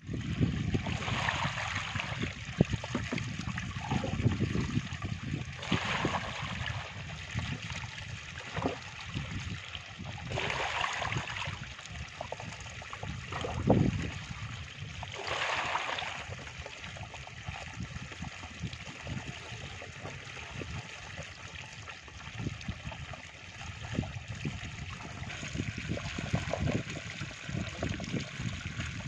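Water streaming and gurgling through a cut in a mud embankment into a shallow pit, with splashes of water every few seconds.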